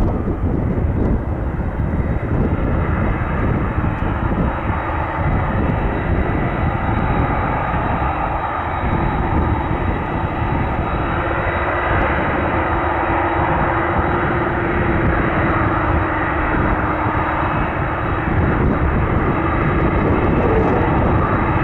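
Boeing 747-400 freighter's jet engines running steadily at taxi power, a continuous engine rush with a steady low hum in it.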